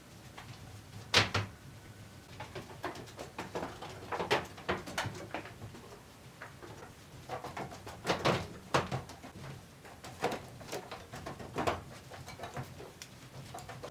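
Wooden slatted pallet frames knocking and clattering as they are lifted and laid down on a slatted wooden floor: a string of irregular knocks, with louder bangs about a second in and about eight seconds in.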